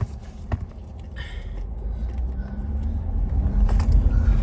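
A motor vehicle running, a low rumble with a faint engine note that grows louder over the last couple of seconds, after two sharp knocks near the start.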